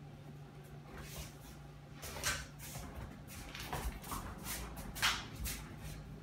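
A Presa Canario and a Doberman puppy play-wrestling on a hard floor: irregular scuffling and scrabbling, with a few sharper bursts about two, four and five seconds in.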